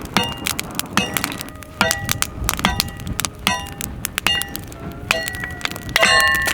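Metal-on-metal strikes from splitting firewood, in a regular rhythm of a little more than one a second, each blow ringing briefly.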